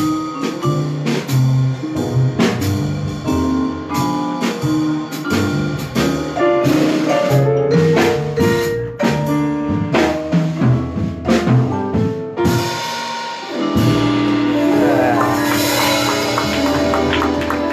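Live jazz combo of vibraphone, piano, acoustic bass and drums playing a B-flat blues, the vibraphone's mallet notes ringing over walking bass and drums. About 14 seconds in the band lands on a long held chord under a cymbal wash, ending the tune.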